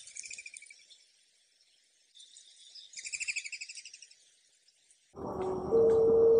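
Two short, high, fast-pulsed chirping trills. About five seconds in, a dove starts cooing: a loud, low, pure coo that steps up in pitch, over a low hiss.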